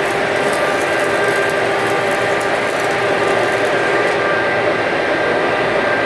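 Stick-welding (SMAW) arc crackling during an overhead weld over a steady machine hum; the crackle stops about four seconds in while the hum carries on.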